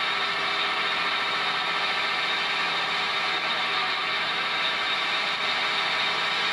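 An engine running steadily on a construction site, an even mechanical drone with hiss and no change in pace.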